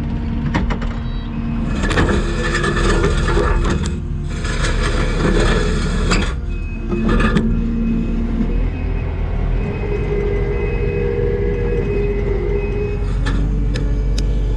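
Kubota skid steer's diesel engine running under load, with the pitch of its hum shifting as the hydraulics work. Over it come several seconds of loud scraping and crunching, as the tooth bucket tears into concrete, with a few sharp knocks near the end.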